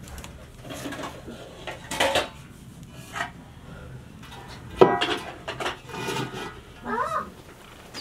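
Aluminium cooking pot set down onto the fire pit: one sharp metallic clank with a short ring about five seconds in, among lighter knocks and clatters of cookware.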